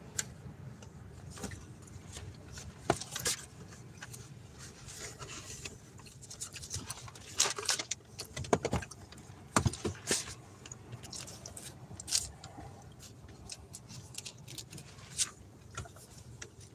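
Pages of a Bible being leafed through and handled: irregular rustles and sharp clicks, a few louder ones around the middle, over a low steady hum.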